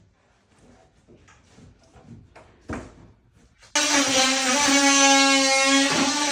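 A few light knocks and taps, then a handheld power tool switches on abruptly about two-thirds of the way in and runs with a loud, steady, high buzz.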